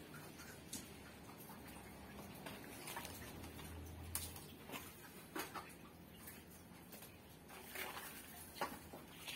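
Faint, irregular scrapes and patters of potting soil being scooped with a small hand trowel and dropped and pressed into a plastic bucket around a fern.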